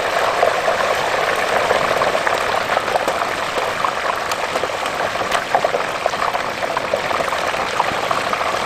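Hot oil in a propane turkey fryer pot bubbling and crackling steadily as a whole turkey is lowered into it on its hook, the moisture in the bird boiling off.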